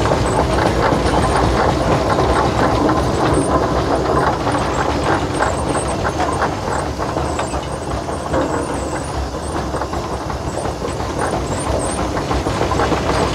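Steam traction engine running: a steady, dense mechanical clatter over a hiss, easing off slightly partway through.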